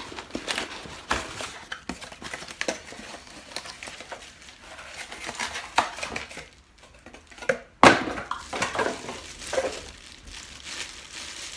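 Cardboard and plastic packaging being handled and crinkled while a power-tool kit is unpacked, with irregular rustles and clicks and one sharp knock about eight seconds in.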